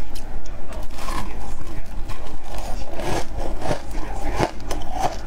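Close-miked crunching and scraping of shaved ice as it is scooped with a spoon and bitten: a run of irregular crisp crunches, busiest in the second half.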